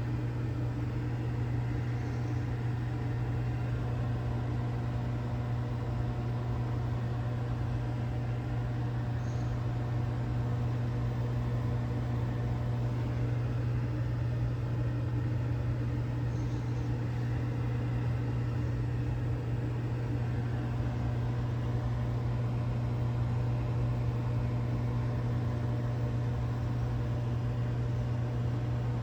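Microwave oven running mid-cook: a steady hum with a strong low drone.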